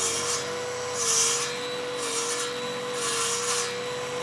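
Rhythmic rubbing, rasping strokes on wood, about one a second, over a steady machine hum that dips slightly in pitch with each stroke.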